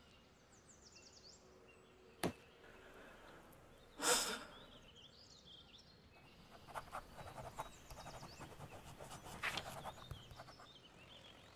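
Quiet room with faint bird chirps from outside, a single sharp click about two seconds in, a short exhale at about four seconds, then soft paper rustling and small clicks as the pages of a manga volume are handled.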